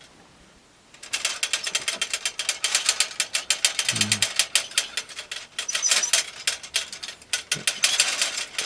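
Foley rattle for an old ontel roadster bicycle: a rapid run of mechanical ratcheting clicks starting about a second in, with a few short dips.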